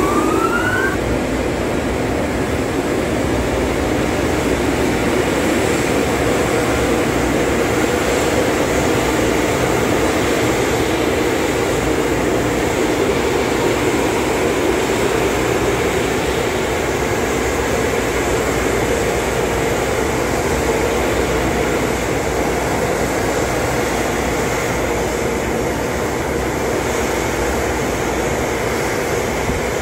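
Automatic car wash air dryer blowers cutting in suddenly, with a short rising whine in the first second as they spin up, then running loudly and steadily.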